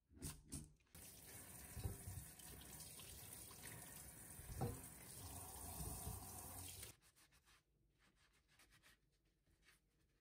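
Kitchen tap water running steadily into a stainless steel sink while carrots are rinsed in a colander, with a few bumps of handling; it stops abruptly about seven seconds in. Afterwards, faint rubbing as the wet carrots are wiped with a cloth.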